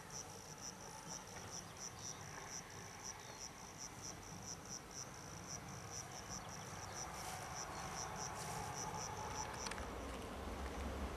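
An insect chirping in an even series of high pulses, about three or four a second, which stops abruptly near the end. Underneath is a faint low rumble that grows louder in the last second or so.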